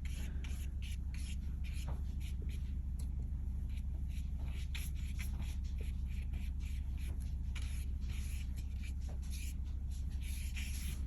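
Paintbrush stroking across watercolour paper: a steady run of short, scratchy swipes, with a steady low hum underneath.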